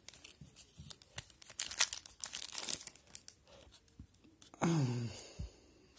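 Foil wrapper of a hockey trading-card pack crinkling and rustling in a run of quick crackles as it is handled and the cards are slid out. A brief falling hum from a person's voice comes about four and a half seconds in.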